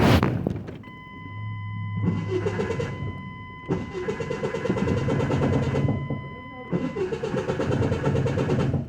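Truck starter cranking the engine in three tries, a short one, a long one and another, without the engine catching; the starter grinds, which the owner puts down to the starter not being aligned right. A steady high-pitched electronic tone sounds through most of it.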